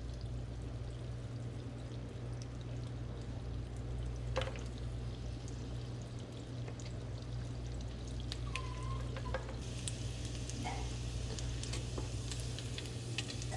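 Butter and minced garlic sizzling in a frying pan, a steady crackle that grows sharper and busier from about ten seconds in, over a constant low hum.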